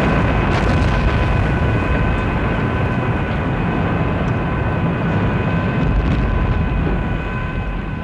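Sustained deep roar of an explosion, slowed and drawn out, with faint steady whistling tones above it; it eases off near the end.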